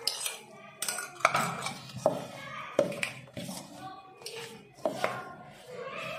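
A ladle knocking and clinking against a bowl in a series of irregular sharp strikes while stirring and working hot beetroot water into flour dough.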